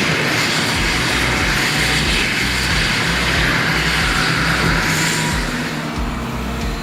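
Heavy machinery running, a loud, dense mechanical noise over a deep pulsing rumble; the higher part of the noise eases off about five and a half seconds in.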